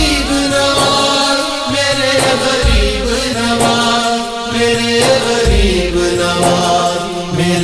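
Devotional naat music between verses: voices chanting and holding drawn-out notes without clear words, over a deep beat about every three seconds.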